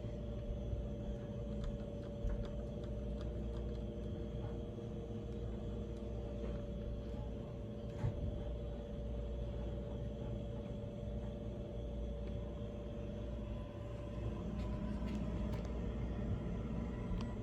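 Otis Series 1 elevator car travelling between floors: a steady low rumble with a constant motor hum, one small click about 8 seconds in, and the sound shifting slightly near the end as the car slows.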